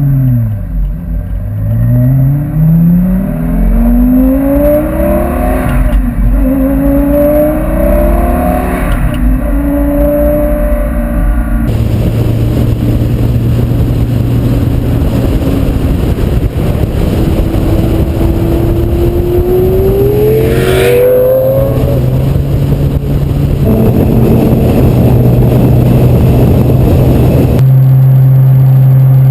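Twin-turbo Lamborghini Gallardo V10 accelerating hard through the gears, the engine note rising and dropping back at each shift several times, then running steadily with another long rev-up, in spliced-together passes that change abruptly.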